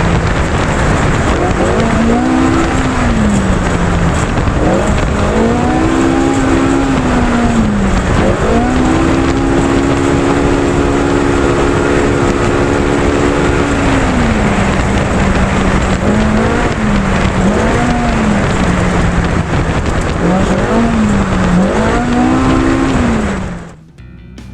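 A race UTV's engine revving up and down again and again as it is driven hard, holding high revs for several seconds in the middle, over a loud steady rushing noise. It cuts off sharply near the end.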